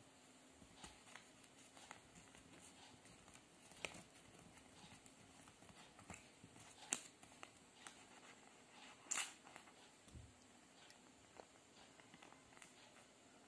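Near silence broken by a few short clicks and soft paper rustles as newspaper is rolled into a thin tube and glued down with a glue stick; the loudest click comes about seven seconds in.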